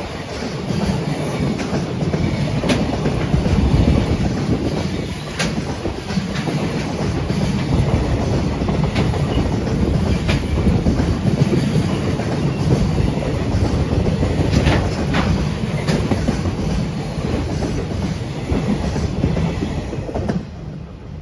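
Freight train of container wagons rolling past at speed: a steady rumble of wheels on rail, with the clickety-clack of rail joints and scattered sharp clicks and squeaks. The sound drops away abruptly near the end.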